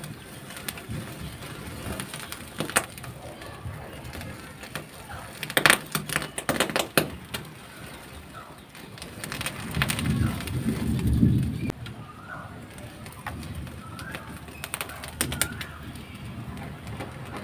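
A dove cooing, loudest a little past the middle, with a few short bird chirps. A cluster of sharp clicks and crackles comes a little before the middle.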